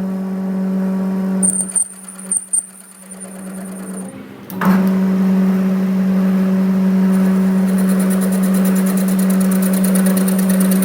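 An electric power tool's motor running with a steady hum. It dips with a few sharp clicks, then about four and a half seconds in a harsh, continuous metal grinding noise starts over the hum and keeps on.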